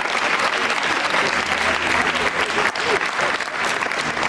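Audience applauding: dense, steady clapping from a crowd in a large hall.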